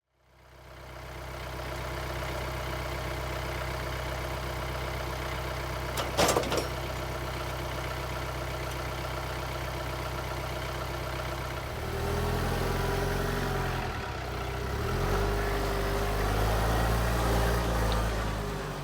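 An engine idling steadily, with a sharp knock about six seconds in; from about twelve seconds in it runs louder, its pitch rising and falling.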